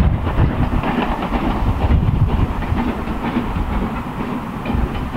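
Steam-hauled train running past, a steady rumble of the locomotive and its carriages on the track.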